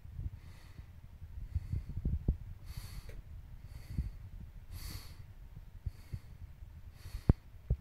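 A person breathing close to the microphone, a hissy breath about every two seconds, over a low handling rumble. There are two sharp clicks near the end.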